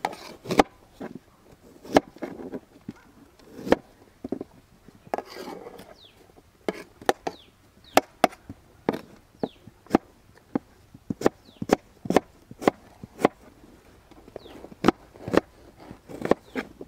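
Kitchen knife chopping fruit, the blade knocking on the cutting board in sharp, irregular knocks about one to two a second.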